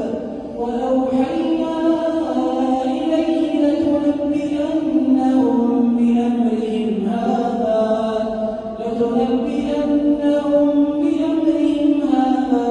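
A man reciting the Quran in a slow, melodic chant (tajwid), one unaccompanied voice holding long notes that bend up and down, with short breath breaks near the start and about two-thirds through.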